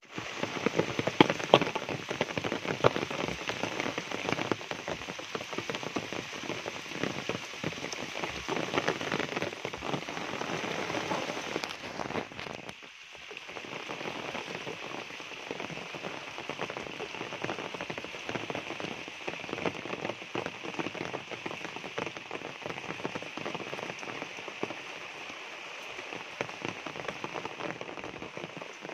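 Heavy rain falling on forest foliage and on puddles along a muddy path: a dense, steady patter of countless drops. It dips briefly about halfway through, then goes on a little softer.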